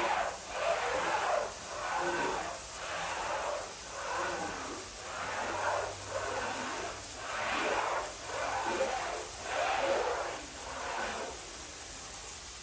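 Floor squeegee pushed in repeated strokes across a soaked, soapy rug, pressing the water out: a wet swish with each stroke, about one a second.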